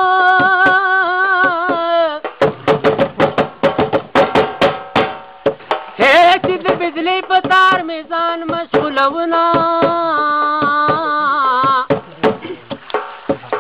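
A man singing unaccompanied phrases in long held, wavering notes, alternating with stretches of fast rhythmic percussion.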